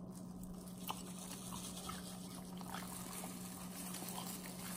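Faint, scattered wet clicks and crackles of eating and handling sauce-coated king crab with plastic-gloved hands, over a steady low hum.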